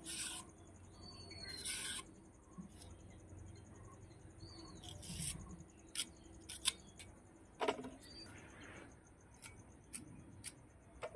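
Taro stalks being peeled and cut with a heavy hand-held metal blade: soft scraping with scattered clicks and knocks as the blade strips the skin and chops.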